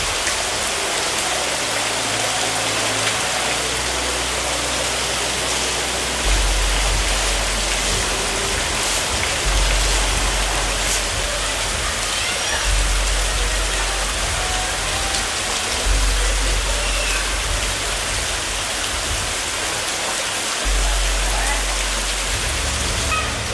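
Steady rain falling, a dense even hiss. Under it runs a background music bed of deep sustained bass notes that change every few seconds.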